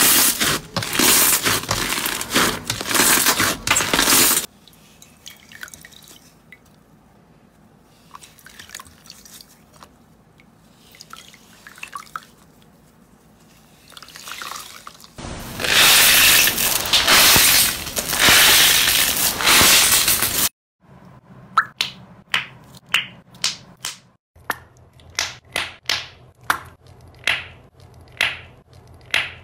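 Hands squeezing and kneading slime in a run of short clips. A loud crackly squishing lasts the first few seconds, then quiet sticky clicks for about ten seconds, then another loud crackly stretch. Last comes a string of sharp wet pops, about one or two a second, as a clear jelly slime is squeezed in the hand.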